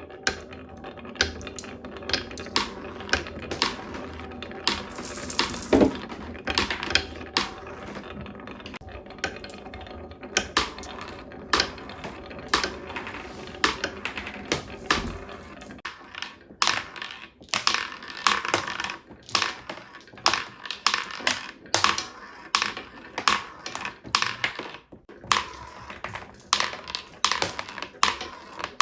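Marbles rolling down a wooden marble-run slider, clacking against the wooden track in an uneven string of sharp clicks, over a steady hiss of water running along the channel.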